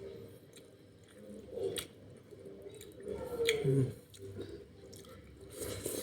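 A person chewing and eating a vegetable dish with chicken, close to the microphone: wet mouth sounds with a few sharp clicks, about three bursts of eating noise.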